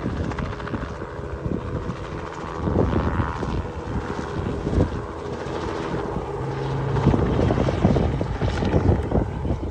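Light two-bladed helicopter flying low overhead: the rapid beat of its rotor over the engine, growing louder about seven seconds in as it banks closer.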